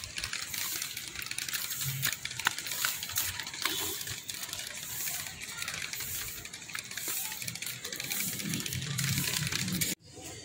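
Footsteps and rustling of someone walking with a handheld phone, many irregular clicks and scuffs, with faint voices in the background; the sound cuts off suddenly near the end.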